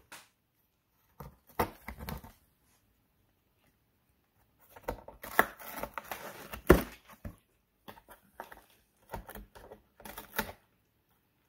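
A cat gnawing and tearing at the rim of a cardboard box: dry crunching and ripping of cardboard in several bursts, with quiet pauses between them.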